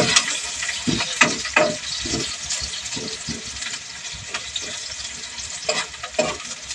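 Sliced onions and ginger sizzling in hot oil in a pan. A metal spoon scrapes and knocks against the pan in short strokes as they are stirred, most busily in the first two seconds.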